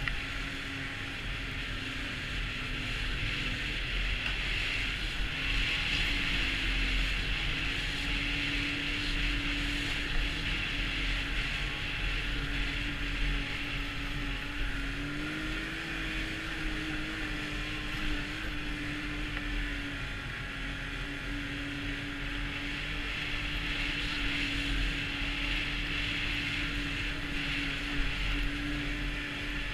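Snowmobile's four-stroke three-cylinder engine running steadily under way, its pitch rising briefly about halfway through and settling back, with wind rushing over the microphone.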